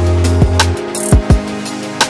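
Background music: a beat-driven track with deep kick-drum thumps and sharp snare-like hits over a held bass note and sustained chords.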